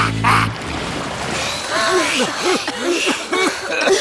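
Cartoon soundtrack: music with hissing pulses of spraying water that cut off about half a second in, followed by many short voice sounds of a group chuckling and murmuring.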